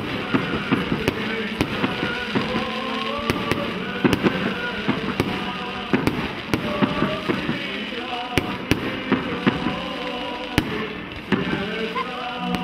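Fireworks going off overhead: a rapid, irregular run of sharp bangs and crackles, several a second, with music playing underneath.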